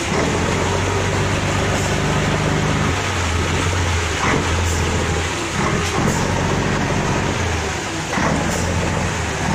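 Bus engine running under load as the bus crawls forward, its low note steady in stretches of a few seconds, with a few short knocks along the way.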